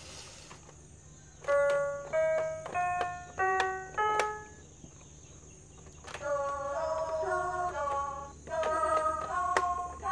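A Fisher-Price baby gym's electronic toy piano plays five single electronic notes, each fading out, a little over half a second apart. About six seconds in it plays a quicker run of notes without a break.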